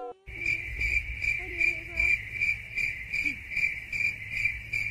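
Steady, high-pitched cricket-like chirping, pulsing evenly about five times a second.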